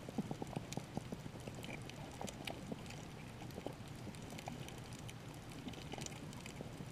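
Underwater reef ambience heard through a camera's waterproof housing: a dense, irregular crackle of clicks over a steady low rumble of moving water, busiest in the first couple of seconds.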